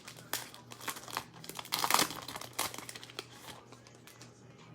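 Trading-card pack wrapper crinkling and tearing as it is opened. A quick run of rustles is loudest about two seconds in, then settles into quieter handling.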